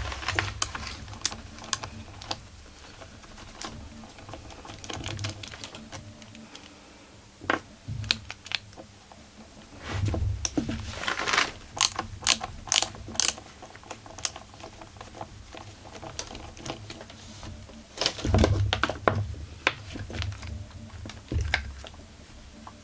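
Hand tools and metal parts on a Husqvarna 44 chainsaw being taken apart: irregular sharp clicks and small clatters, a quick run of clicks about halfway through, and a few dull knocks.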